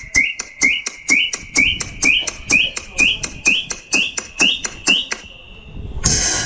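Electronic dance music played through a PA system, in a breakdown with no bass: fast hi-hat ticks about four a second under a short rising synth chirp twice a second. These stop near the end, and a brief noise sweep follows before the full beat comes back in.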